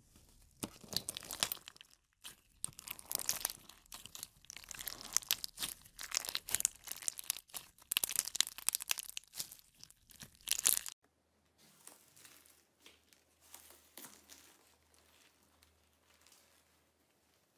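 Pink clear slime packed with plastic pearl beads squeezed and kneaded by hand, a dense run of crackling clicks and squelches. About eleven seconds in it cuts to quieter, sparser sticky crackling of green slime being stretched.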